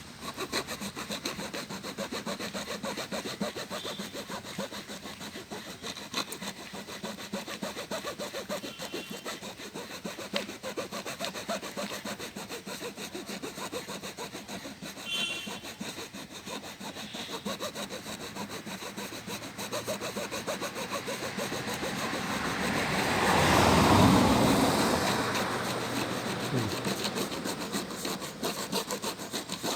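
A blade sawing through a hard plastic jar in quick, even back-and-forth strokes, cutting it off a dog's head. About two-thirds of the way through, a louder rushing sound swells and fades.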